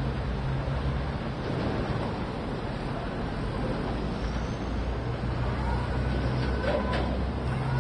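Fuel tanker truck (tractor unit with tank trailer) driving past, its engine giving a steady low drone over road noise that grows stronger in the second half, with a faint thin whine near the end.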